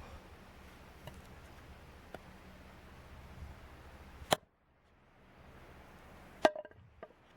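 Two sharp knocks or cracks, one about four seconds in and another about two seconds later, over a faint background hiss.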